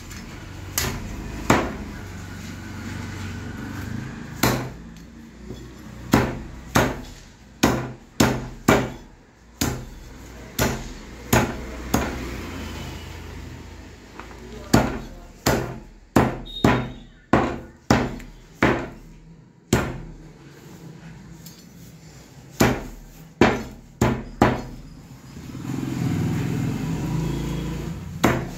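Meat cleaver chopping a chicken into pieces on a thick round wooden chopping block. The sharp blows come in irregular runs of several chops, with short pauses between the runs.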